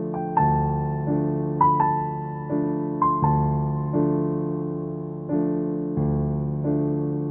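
Background music on a keyboard: chords struck about every two-thirds of a second, each dying away, with a few higher melody notes on top.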